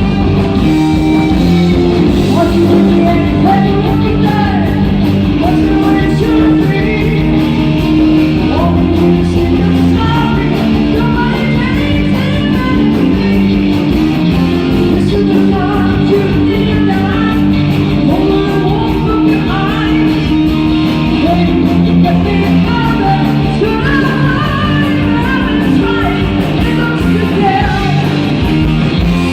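Rock band playing live, electric guitar and steady low notes under a singer's voice, loud and continuous.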